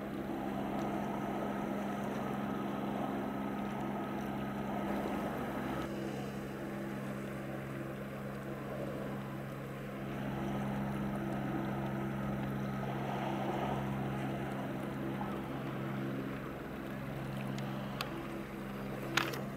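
Steady low drone of a boat's diesel engine carrying across the water, with a sharp click near the end.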